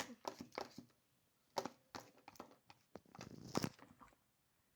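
Glue and poster-paint slime mixture being stirred: faint, irregular sticky clicks and crackles, with a louder stretch about three and a half seconds in.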